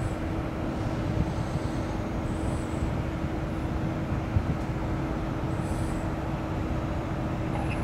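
Steady low rumble of a car heard from inside the cabin, with a faint constant hum and a couple of small knocks.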